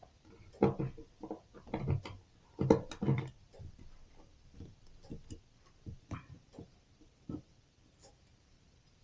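Irregular clicks, scrapes and rattles of steel wire being pulled and worked through a homemade wire hose-clamp tool, loudest in the first few seconds, then lighter taps.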